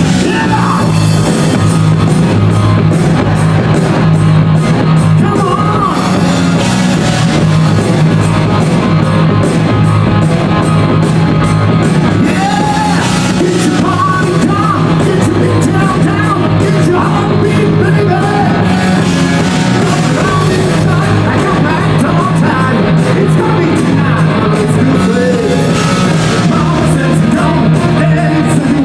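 Rock music with singing, loud and steady throughout.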